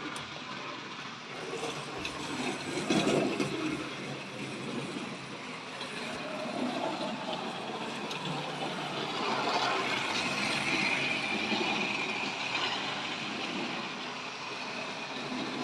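Tri-ang clockwork toy train running on the model track: wheels rattling over the rails while the wound-up spring motor whirs, with a steady higher whine for a few seconds past the middle.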